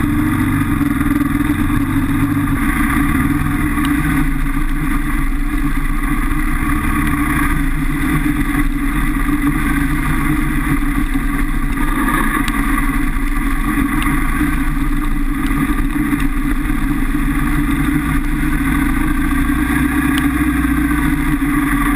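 Kawasaki KLR650's single-cylinder engine running steadily at an even trail pace.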